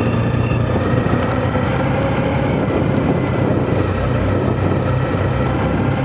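Motorcycle engine running steadily at low speed, with road noise over cobblestones.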